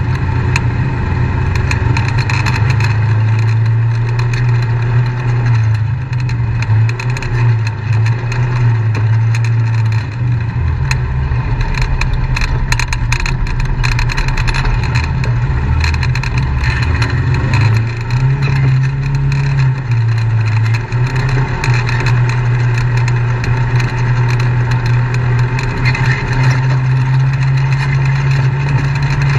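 Off-road vehicle engine running at low trail speed, its pitch stepping up and down as the throttle changes over the ruts. Scattered knocks and rattles come from the bumpy ground about halfway through.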